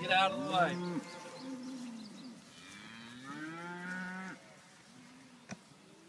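Cattle mooing: several separate moos, the longest drawn out for nearly two seconds in the middle, then a single sharp click about five and a half seconds in.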